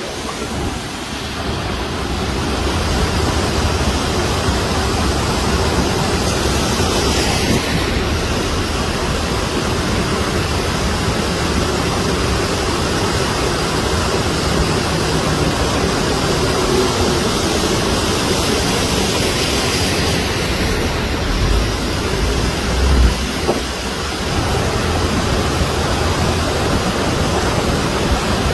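Floodwater rushing down a swollen hill stream: a loud, steady noise of churning water, with a brief low bump a little over three-quarters of the way through.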